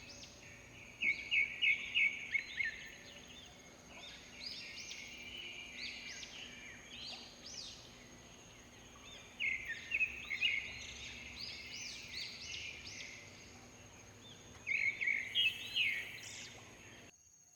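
Several birds singing in a morning chorus, with one bird three times giving a loud burst of rapid repeated notes about a second and a half long. A steady thin high-pitched tone runs underneath.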